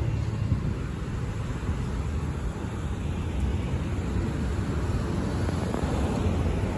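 Steady low rumble of street traffic: an articulated city bus and cars approaching along the avenue.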